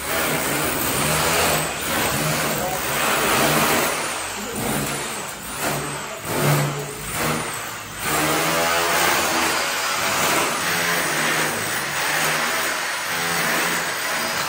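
Electric grinder cutting a chase into a plaster and masonry wall for wiring conduit, running loud under load. Its pitch and loudness rise and fall as the disc bites during the first half, then hold steadier.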